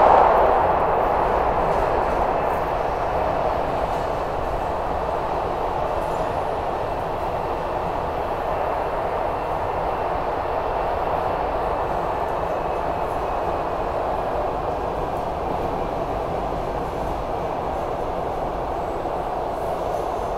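A SEPTA Broad Street Line subway car, a Kawasaki B-IV, running at speed, heard from inside the car: a steady rumble of wheels on rail with a faint high whine over it. It is loudest at the very start, then settles to an even level.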